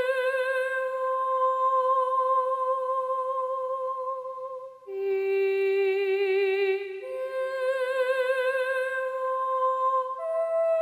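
Background music: a slow melody of long held notes with a wavering vibrato, the pitch changing only three times.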